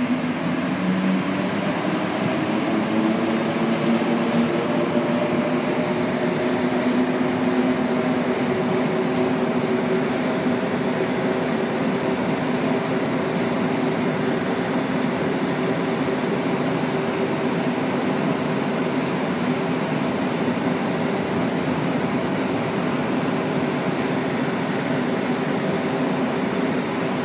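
Rubber-tyred Montreal Metro train heard from inside the car as it accelerates out of a station. Its motor tones rise in pitch over the first few seconds, then hold steady over the running noise in the tunnel.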